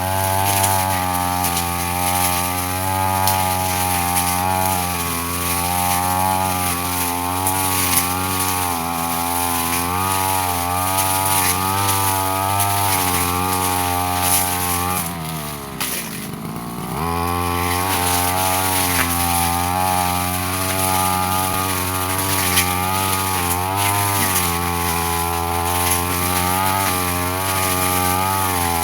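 Brush cutter engine running under load, its pitch wavering as the blade cuts through undergrowth. About halfway through, the throttle is eased off: the engine note drops, then rises back to working speed.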